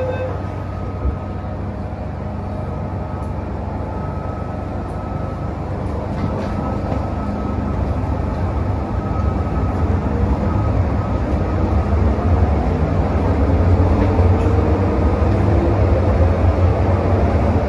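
Hong Kong MTR M-Train (Metro-Cammell electric multiple unit) pulling away from a station, heard from inside the car. A low rumble grows steadily louder and faint motor whines rise slowly in pitch as the train picks up speed. There is a single click about a second in.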